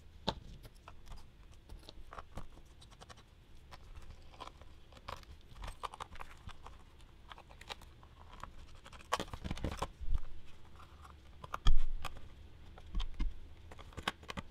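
Small screwdriver backing out tiny screws from a plastic e-reader back, with scattered light clicks and scrapes of metal on screw and plastic. A few louder knocks past the middle come from the plastic reader being handled and set down.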